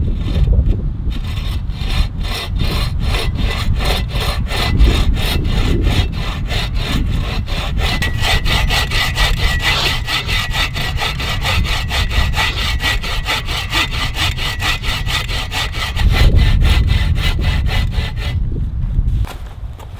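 Folding bow saw cutting through a dead, lichen-covered log with quick, even push-and-pull strokes. The blade rasps through the wood and stops a couple of seconds before the end.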